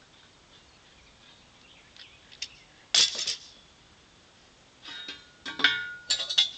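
Two short bursts of sharp metallic clinks and taps, the second longer, with a brief ringing after the strikes.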